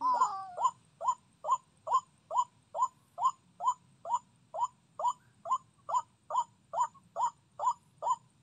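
White-breasted waterhen 'kruak' calls sounding as a trapping lure: one short note repeated very evenly about twice a second. A second, wavering call overlaps it in the first half-second, and the series stops abruptly near the end.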